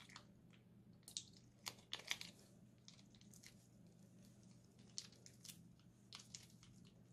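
Foil piping bag crinkling as it is squeezed and handled: sharp, short crackles in clusters, about a second in, around two seconds, and again from about five to six and a half seconds.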